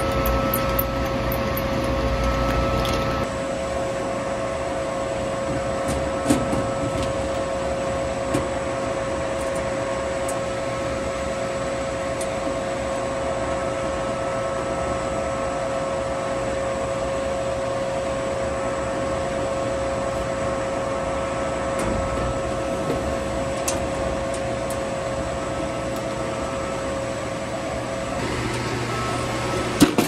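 Steady hum and whine of running boiler inducer fans, several fixed tones over a low rumble, with a few faint clicks of tools and metal parts being handled.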